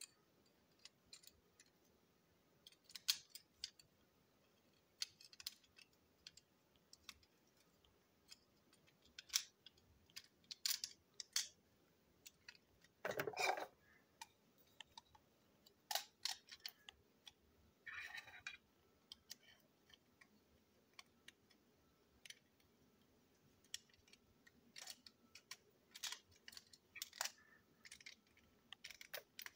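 Small plastic toy train parts being handled and fitted together: scattered light clicks and taps at irregular intervals, with one longer, louder rattle about halfway through.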